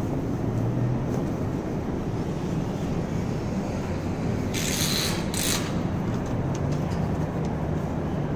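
Steady city street traffic noise: a low rumble with engine hum. About halfway through come two short, loud hisses, less than a second apart.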